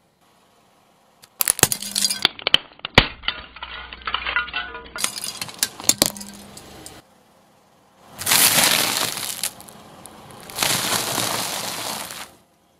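A car tyre rolling over and crushing objects on asphalt. First comes a run of sharp cracks and clicks, then two long, dense crunches as a puffed-rice bar is ground into crumbs under the wheel.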